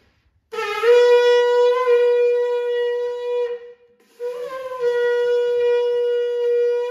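A shofar blown in two long blasts, about half a second apart, each held on one steady note after a short upward slide at the start.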